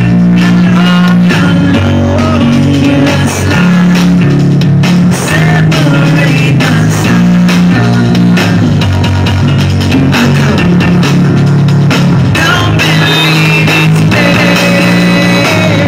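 Loud rock music with guitar, bass and drums, playing continuously with a heavy, shifting bass line.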